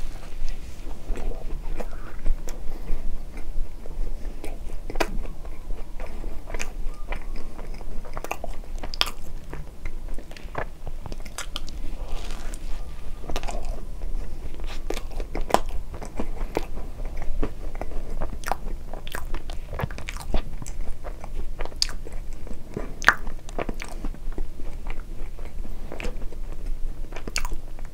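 A person biting into a soft injeolmi cream bread bun near the start, then chewing it close to a clip-on microphone, with frequent short, irregular mouth clicks.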